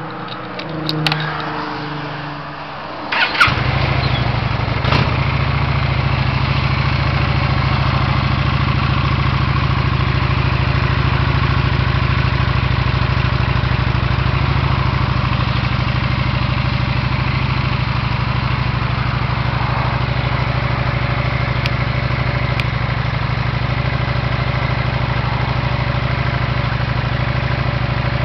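2014 Honda Shadow Spirit 750's V-twin engine starting about three seconds in, then idling steadily.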